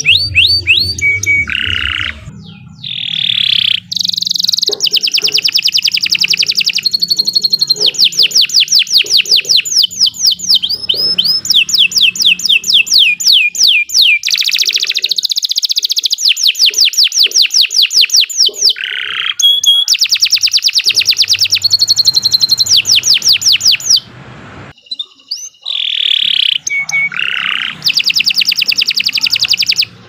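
Domestic canary singing a long, unbroken song of fast rolling trills and repeated sweeping notes, with a short pause late on before it resumes.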